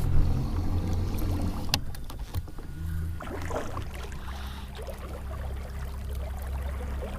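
Low steady rumble on a small fishing boat, with scattered knocks and clicks and one sharp click just under two seconds in.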